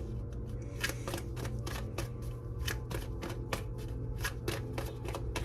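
Tarot deck being shuffled by hand, a rapid run of card slaps at about three or four a second.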